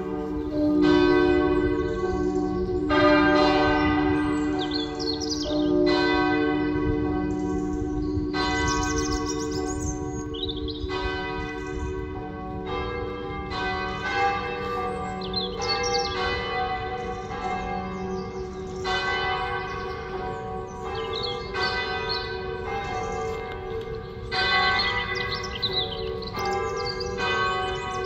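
Half-muffled church bells in change ringing, a steady run of strikes with the bells taking turns. Each bell sounds open on one stroke and muffled on the other, the half-muffled ringing customary for Remembrance.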